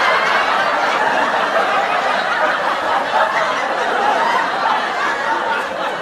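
Several people laughing together in a steady, unbroken stretch: a stock laughter sound effect.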